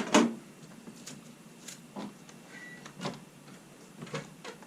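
Parts of a portable air conditioner's window kit knocking and clicking as they are handled: a sharp double knock at the start, then scattered lighter clicks and taps.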